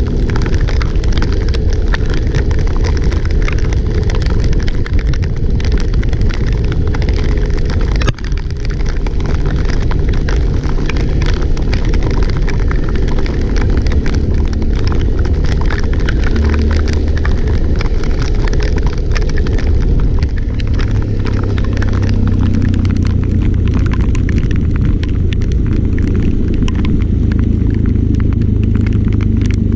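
Loud, steady rumble and hiss of a vehicle travelling in heavy typhoon rain. It dips briefly about eight seconds in, and the low hum grows stronger later on.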